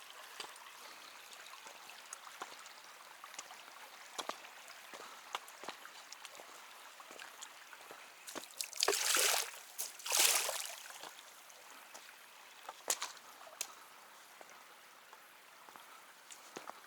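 Small stream trickling over rock, with scattered sharp clicks and, about halfway through, two louder splashes a second or so apart, like boots stepping through the water.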